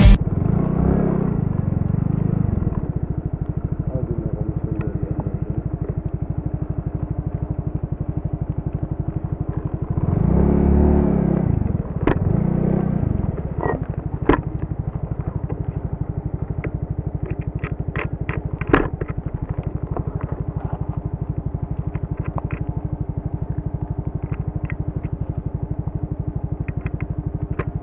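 Small motorcycle engine running steadily while riding, louder for a moment about ten seconds in. From about halfway through, scattered clicks and rattles come in as it rides over a rough gravel track.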